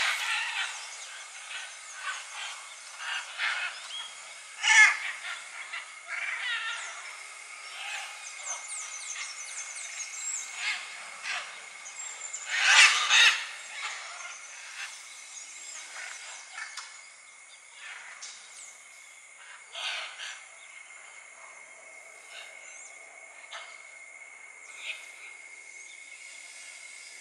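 Scarlet macaws squawking: loud calls right at the start, about five seconds in, a longer double burst around thirteen seconds in, and another at twenty seconds, with softer calls between.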